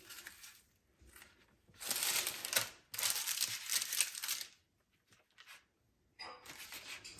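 Crisp baked puff-pastry tart slices being broken apart by hand on baking paper: crackling flaky pastry and crinkling paper, in a burst about two seconds in, another right after, and a third near the end.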